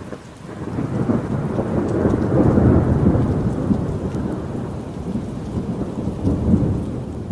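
Thunder rolling over steady rain: a deep rumble builds over the first two seconds, rolls on and slowly fades, with a sharper burst about six and a half seconds in.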